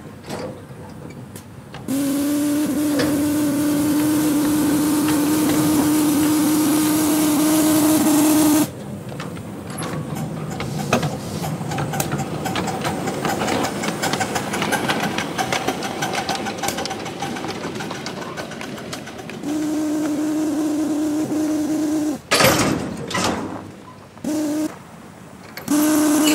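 Live steam locomotive whistle blowing a long blast about two seconds in, a shorter blast later, and two short toots near the end, each a steady hissing tone. Between the blasts the moving train clatters and hisses.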